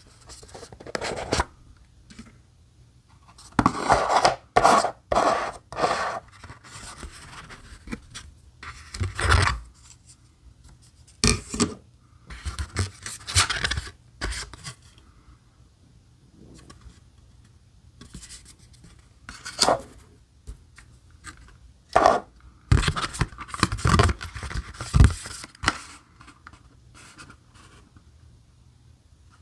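Cardboard box being opened and handled by hand: the lid and card inserts sliding, scraping and rubbing against each other in irregular bursts with short pauses between.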